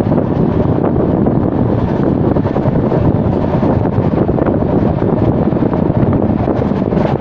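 Moving passenger train heard from a window seat: a loud, steady rumble of the running train with wind buffeting the microphone.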